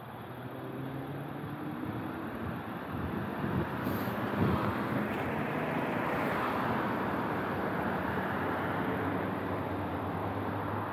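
Road traffic: cars driving past on a wide multi-lane road, the rushing tyre and engine noise building to its loudest about four to seven seconds in.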